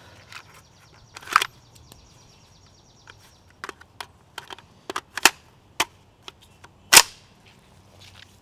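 Sharp metallic clicks and clacks from a jammed Kel-Tec PLR-16 5.56 pistol as its action and magazine are worked by hand to clear the stoppage, a case still stuck in the action despite a new extractor and spring. The clacks come irregularly, a loud one about a second in and the loudest about seven seconds in.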